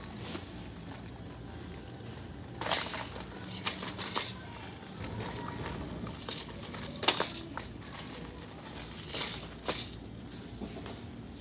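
Store room tone: a steady low hum with short rustles and clicks every second or two, the sharpest about seven seconds in.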